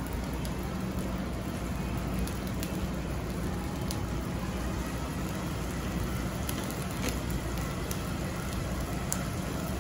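Whole butter and olive oil heating in a pan over a high gas flame: a steady sizzling hiss with scattered small crackling pops, over a steady low hum.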